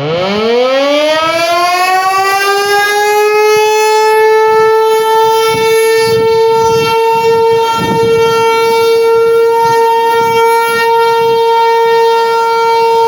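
American Signal T-128 electromechanical outdoor warning siren starting up for a snow emergency activation: its pitch climbs quickly for about three seconds, then holds one steady, loud tone.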